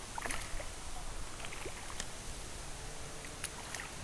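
Light splashing and rippling of shallow river water as a just-released small bass swims off, with a few short ticks and splashes about a third of a second in. A steady hiss of moving water and wind buffeting the microphone lies underneath.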